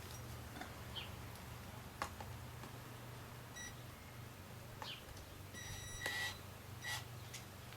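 A few short electronic beeps in the second half over a steady low hum, with some faint clicks.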